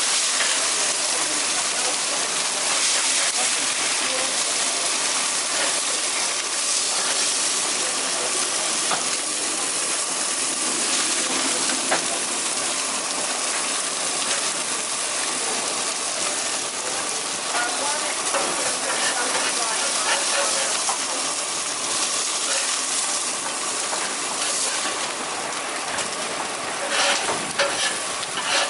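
Steady hissing sizzle of fish cooking on a hot grill, with a few sharp clicks near the end.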